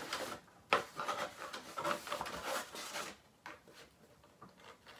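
Brown kraft packing paper rustling and a cardboard mailer box being handled, with a sharp knock under a second in; the rustling dies down after about three seconds.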